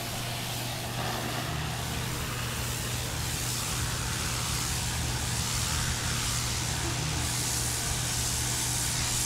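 Pressure washer running steadily: a constant low motor-and-pump hum under an even hiss.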